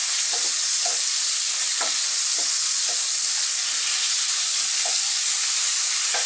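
Prawns sizzling steadily as they fry in hot oil in a non-stick kadai, stirred with a wooden spatula that scrapes and knocks lightly against the pan every second or so.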